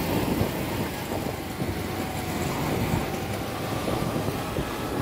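Honda Activa scooter on the move: its small single-cylinder engine running under steady wind and road noise on the microphone.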